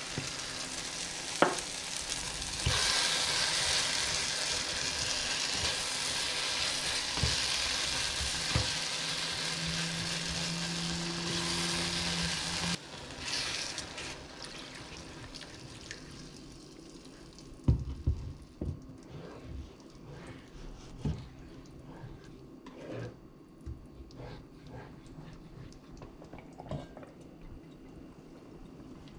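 Diced eggplant frying in a pan: a loud, steady sizzle that cuts off suddenly about halfway. Water from a kettle then goes in, and the pan carries on much quieter, with a spatula knocking and scraping against it now and then.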